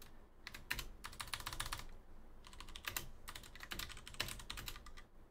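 Typing on a computer keyboard: quick, irregular runs of key clicks with short pauses between them.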